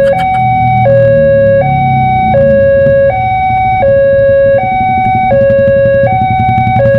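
Railway level-crossing warning alarm from the loudspeaker on the crossing post: a loud two-tone signal alternating high and low, each note about three quarters of a second long, warning that a train is approaching. A low rumble runs underneath.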